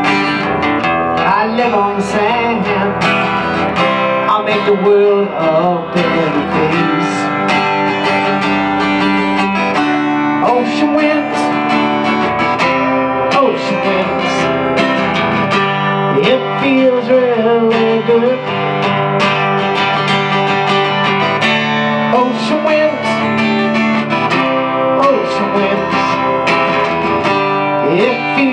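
Live acoustic guitar music: strummed chords, with a melody line that bends and wavers above them.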